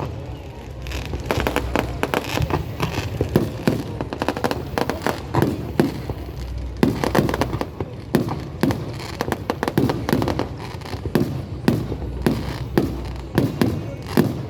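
Aerial fireworks bursting in quick succession: a dense run of sharp bangs and crackles, several a second.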